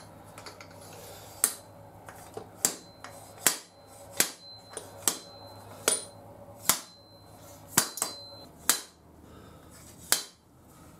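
About a dozen sharp metallic knocks, a little under one a second, as the Teflon bushing and washer of a Honda CB750F2 front fork are driven down into the fork leg. The bushing has not yet bottomed out, when the knock would change.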